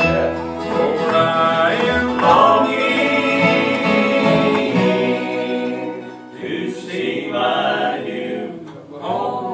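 Live bluegrass gospel band: voices singing together over acoustic guitars, mandolin and upright bass. A long note is held from about three seconds in, then the music drops quieter.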